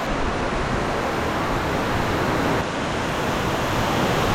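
Tukad Cepung Waterfall: a steady, even rush of falling water.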